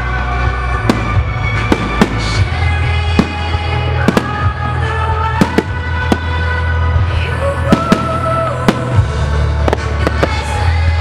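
Aerial firework shells going off in repeated sharp bangs at irregular intervals, over loud display music with sustained notes and a steady heavy bass.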